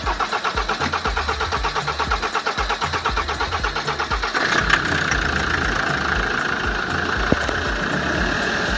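Land Rover engine being cranked over by its starter, an even pulsing churn, for about four seconds, then catching about four seconds in and settling into a steady idle.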